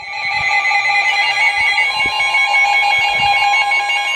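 Emergency Alert System attention signal: a loud, steady two-tone alarm that starts abruptly out of silence, announcing an incoming severe weather alert.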